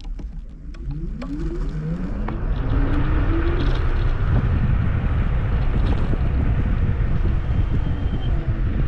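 Kugoo G2 Max electric scooter pulling away: its motor whine rises in pitch over the first few seconds, then gives way to a steady low rumble of wind on the microphone as the scooter rides at speed.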